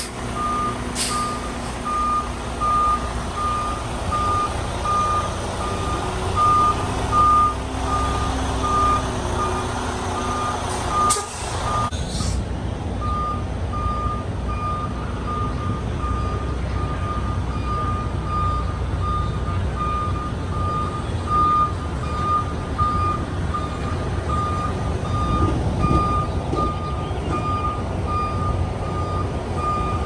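A truck's reversing alarm beeping at regular intervals on one steady pitch, over the low rumble of the truck's engine. The beeps break off briefly about twelve seconds in, then resume.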